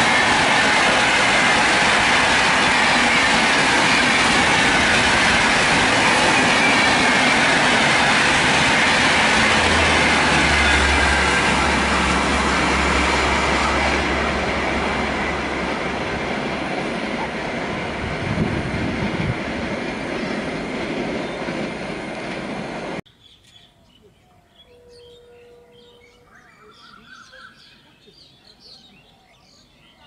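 Howrah Rajdhani express of LHB coaches passing at speed: a loud rush and clatter of wheels on rail with a falling whine, which tapers off after about fourteen seconds. About 23 seconds in the sound drops abruptly to faint background ambience with bird chirps.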